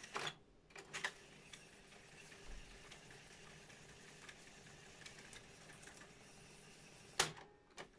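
Elfa reel-to-reel tape recorder fast-winding its tape, a faint steady whir of the spinning reels. A piano-key click comes at the start and a sharper key clunk about seven seconds in.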